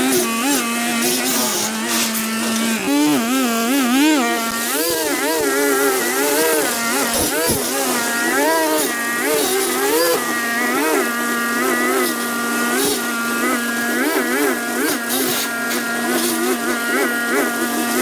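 Small petrol engine of lawn-care equipment running under load, its pitch rising and falling over and over above a steady hum.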